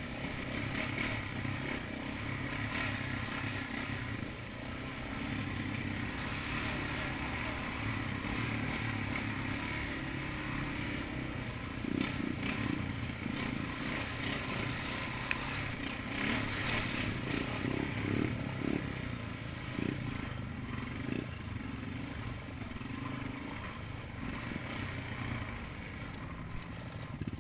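ATV engine running steadily under way on a rough trail, with the machine's rack and body rattling over bumps and a burst of clatter and splashing while crossing a muddy, puddled stretch midway.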